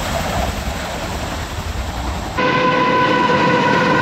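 A Chinook tandem-rotor helicopter running in a low hover, a steady low rumble. After about two and a half seconds it switches abruptly to a diesel freight locomotive sounding its horn, one steady, louder note held through the end.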